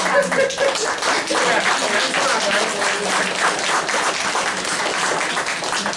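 Audience applauding: many hands clapping together.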